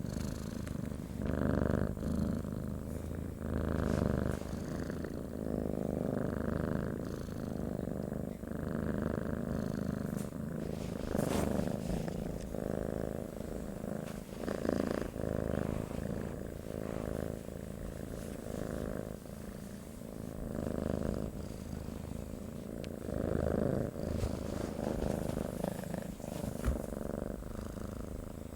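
Domestic cat purring steadily, close up, the purr swelling and easing with each breath about every second and a half.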